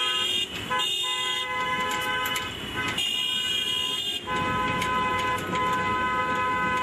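Car horns of a celebratory convoy honking in long held blasts, several horns of different pitch overlapping, with brief breaks about half a second and four seconds in.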